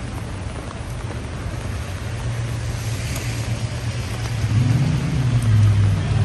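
A road vehicle's engine rumbling close by in street traffic, growing louder about halfway through, over a steady hiss of rain and wet street noise.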